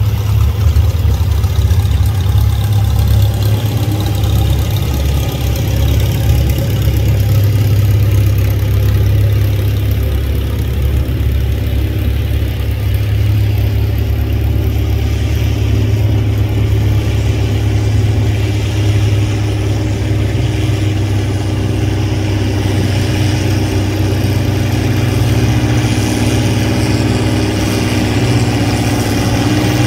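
Antique farm tractor engine running steadily with a strong low drone.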